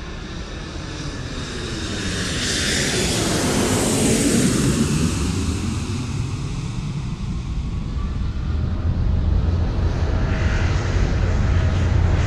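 F-100 Super Sabre jet flying past. Its noise swells to a peak about four seconds in, with the pitch sweeping down as it passes, then settles into a steady low rumble.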